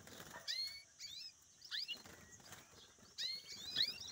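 Young European goldfinches calling in a cage: several bunches of quick, high, twittering chirps spread through the moment, over a faint steady high hiss.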